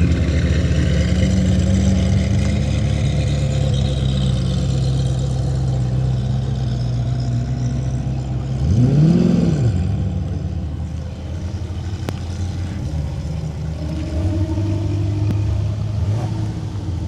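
Sports car engines running close by. About nine seconds in, one engine revs up and drops back down, the loudest moment, before the sound settles to a lower, steadier engine note.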